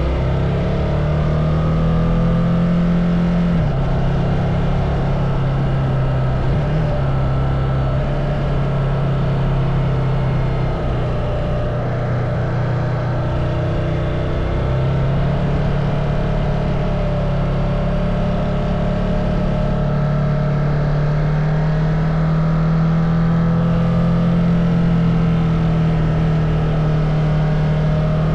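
Ducati Multistrada motorcycle engine running continuously, its note rising and falling gently in pitch.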